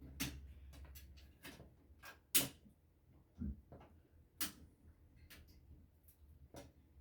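Irregular light clicks and knocks of plastic and metal parts being handled while an old TV is taken apart, the sharpest about two and a half seconds in.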